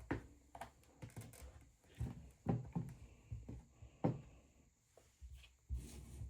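Irregular soft knocks and thumps, as of objects being handled and set down on a surface, about half a dozen over a few seconds, the loudest about two and a half and four seconds in.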